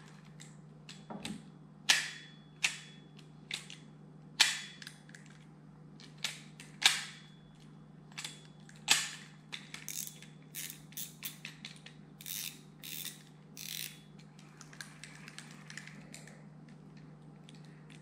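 Sharp clicks and snaps from a 6000-size spinning reel being worked by hand, its bail, handle and mechanism clicking over at irregular intervals, with a quicker run of softer clicks in the second half.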